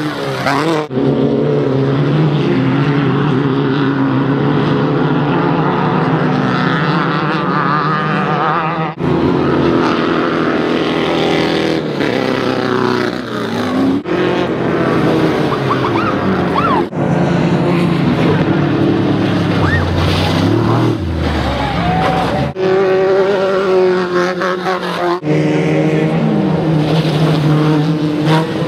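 Off-road race buggy engines running hard, their pitch rising and falling as they rev, in a string of short clips cut abruptly one after another.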